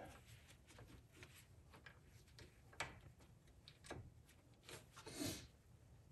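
Near silence with a few faint metallic clicks and a brief scuff about five seconds in, as a gloved hand threads a brake caliper bolt in by hand.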